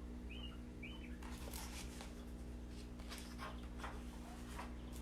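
Faint, irregular rustles and scratches of paper as a picture book's pages are handled and turned, over a steady low hum. Two faint short rising chirps sound in the first second.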